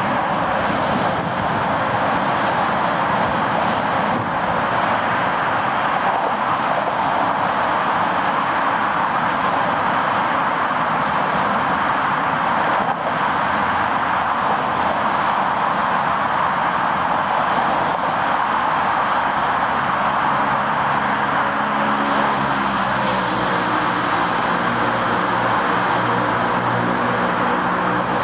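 Steady traffic noise coming out of a highway road tunnel's mouth. From about three quarters of the way in, a car's engine joins it and grows louder as the car approaches the exit, coming out at the very end.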